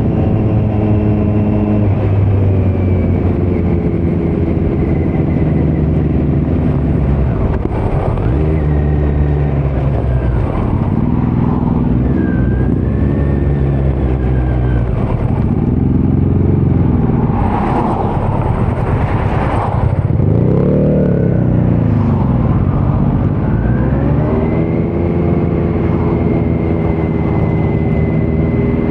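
Kawasaki Z900's inline-four engine through a Leo Vince muffler with no dB killer, under way: revs climb and drop again and again through gear changes, with quick swoops in pitch in the middle and a steady climb near the end.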